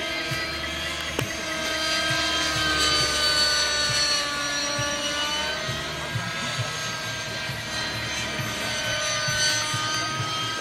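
Align T-Rex 600 radio-controlled helicopter flying overhead: a steady high whine from its motor and rotors, its pitch shifting slightly up and down as it manoeuvres.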